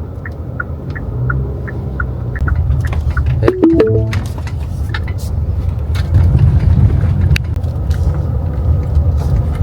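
Car driving slowly, with a steady low rumble of engine and road, under background music with a light ticking pattern that fades after the first couple of seconds.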